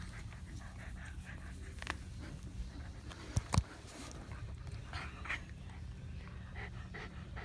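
Shetland sheepdogs panting as they play, with two short sharp knocks close together about three and a half seconds in, over a steady low rumble.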